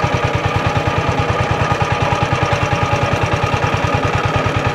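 Boat engine running steadily with an even, rapid beat.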